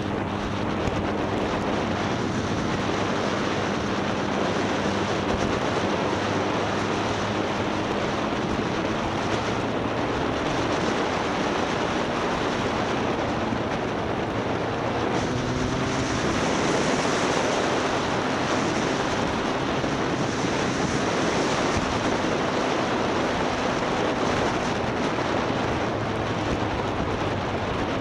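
Motorcycle riding at speed, with heavy wind noise buffeting the on-bike microphone over the engine running underneath; the engine note rises briefly about halfway through.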